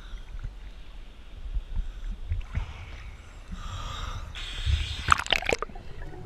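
Sea water sloshing and lapping against the camera's waterproof housing at the surface, with a low rumble. About four and a half seconds in, louder splashing and gurgling as the camera goes under the water.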